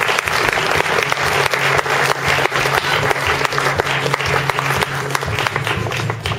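Audience applauding: many hands clapping together, steady and dense.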